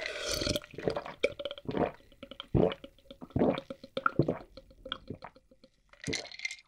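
A person gulping an iced drink from a glass mug, close-miked: a steady run of swallows about one every second, with a short breathy sound near the end.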